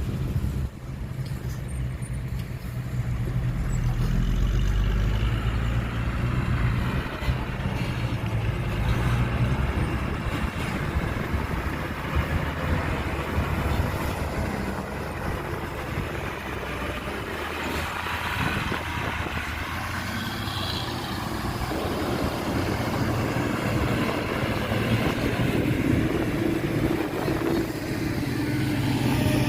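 Heavy diesel engines of earthmoving machinery running, the low engine note rising and falling as they work.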